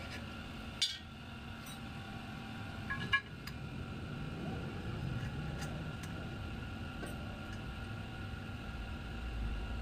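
Two light metallic clicks, about a second in and again about three seconds in, as a dial caliper is set against an aluminium engine crankcase, over a steady low rumble.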